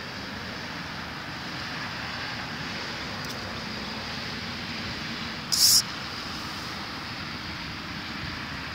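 Steady wind noise on the microphone outdoors, with one short, sharp hiss of noise about five and a half seconds in.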